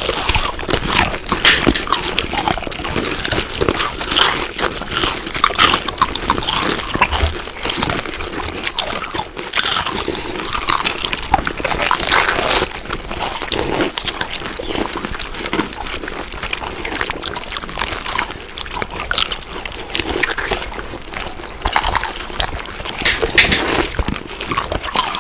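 Chewing and biting crunchy food, with dense, continuous crunching and crackling.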